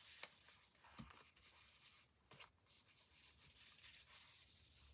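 Faint rubbing of an ink blending tool being worked in small strokes over card stock, a soft papery swish with a few light taps.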